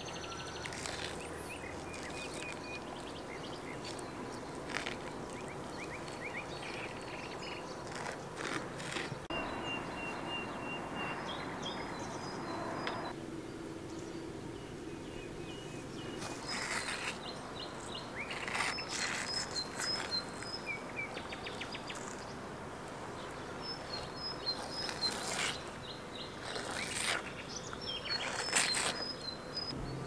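Countryside ambience: birds chirping on and off over a steady background hiss, with scattered sharp clicks and knocks, most of them in the second half.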